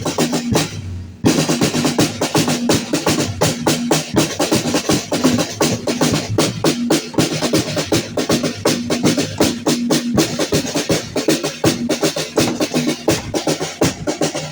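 Drum-led music for a traditional danza: fast, steady drumbeats with a held tone running above them. The music drops out briefly about half a second in and comes back in at full level just over a second in.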